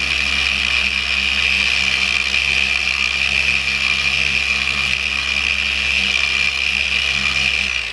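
Electric polisher with a foam buffing pad running steadily while buffing a painted motorcycle body panel: a steady motor whir with a hissy top. It shuts off at the very end.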